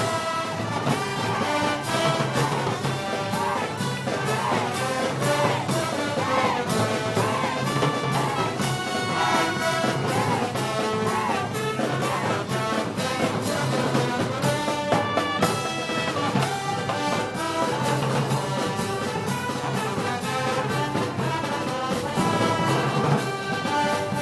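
Brass band playing Moors and Christians festival music: trumpets and trombones carry the melody over a steady beat of drums and cymbals.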